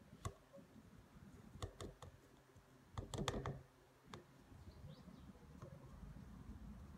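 Faint, scattered clicks and light taps of a plastic measuring cup knocking against a blender jar as powdered milk is tipped in, with a short run of taps about three seconds in.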